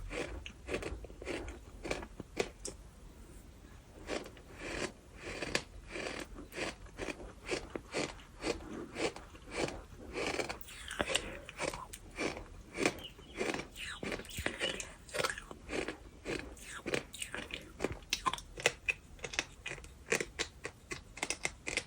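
Bird sand being chewed: many gritty crunches in quick, irregular succession, with a quieter stretch about two to four seconds in.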